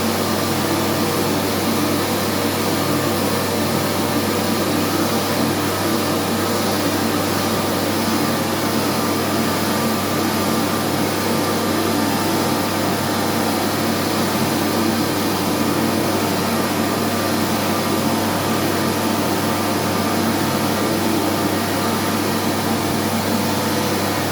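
Anda Series 3000 hand dryer (Flowsave) running steadily with a low hum under the rush of air. The motor sounds bad: a failing dryer motor.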